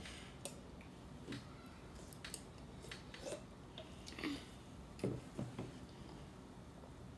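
Quiet small sounds of a child drinking from a soda can: a few soft sips or swallows, then light knocks about five seconds in as the aluminium can is set back down on a wooden table.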